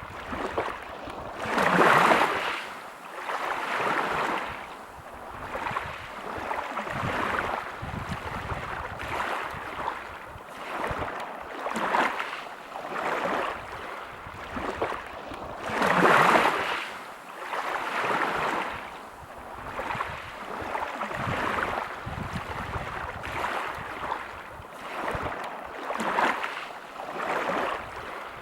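Small waves breaking and washing over a pebble beach, rising and falling every few seconds, with the biggest surges about two seconds in and again around the middle.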